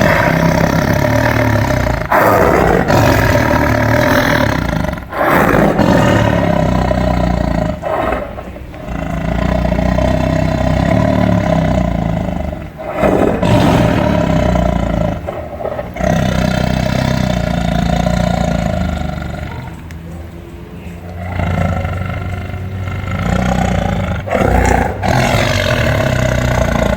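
Lion roaring: a series of long, loud roars with short breaks between them.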